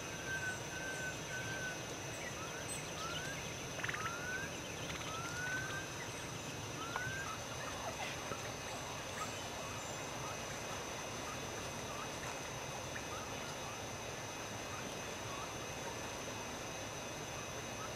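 Dark-backed wood-quail calling: a quick run of short whistled notes, then several rising whistles spread over the next few seconds, after which they stop. A steady high insect drone runs underneath.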